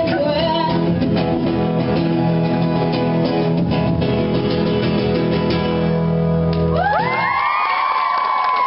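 Guitar playing sustained closing chords of a live song. About seven seconds in the guitar drops away and several high tones glide up and hold to the end.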